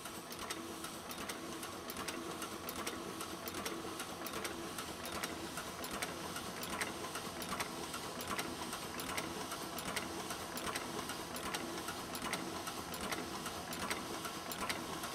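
Offset printing press running, a steady mechanical clatter with regular clicking from its cylinders and rollers.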